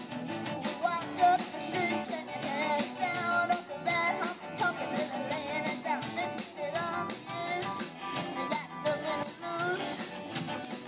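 Live rock band playing amplified electric guitars and drums with a steady beat, a woman singing the lead vocal.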